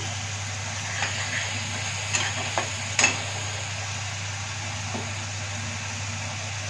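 Oil sizzling steadily in a wok on a gas burner, with a few sharp clicks about one to three seconds in as a knife cuts raw potatoes against a steel bowl.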